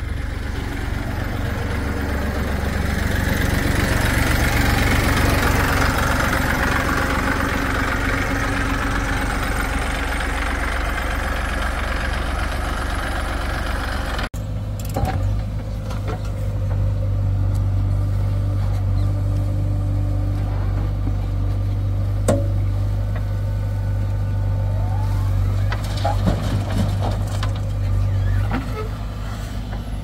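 Diesel engines of a backhoe loader and farm tractors running steadily, with a broad hiss over the first half. A sudden break comes about halfway, then a steadier low drone with a few sharp knocks.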